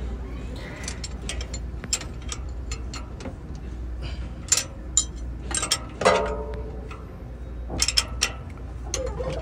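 Irregular metallic clicks and clinks of hand tools working on an engine's rocker arms and valve gear during valve-clearance adjustment, with a ratchet-like ticking. A louder clank comes about six seconds in.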